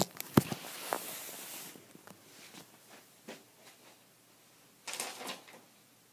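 Handling noise from a phone camera: a few sharp knocks and a brief rubbing hiss in the first two seconds as it is moved and set down, then faint scattered ticks and a short rustle about five seconds in.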